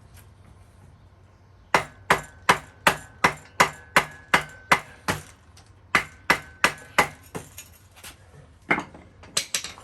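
Hammer blows through a wood block onto a stuck metal part of a recumbent tandem trike: two runs of quick, even strikes, about three a second, with a faint metallic ring under them, then a few last blows near the end. The part does not budge.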